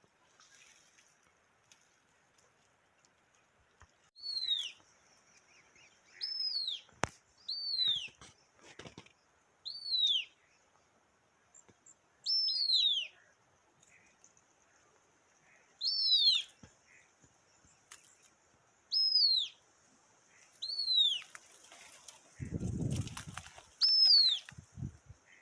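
A bird repeatedly giving a single short call that sweeps down in pitch, about ten times at intervals of two to three seconds. A brief low rumble comes near the end.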